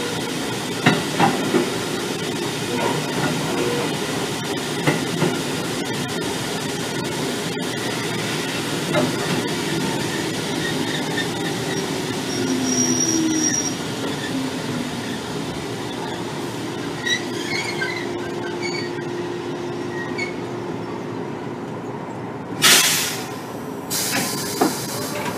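Inside a Kotoden 1300 series electric train car (the ex-Keikyu 1000 type), a steady mechanical rumble. About 23 seconds in, a loud sudden hiss of air lasts about a second, with a shorter hiss just after.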